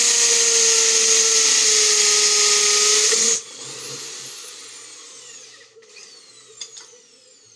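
Power tool, drill-like, running at full speed with a steady whine for about three and a half seconds, then switched off and spinning down with a falling whine; a couple of light clicks follow.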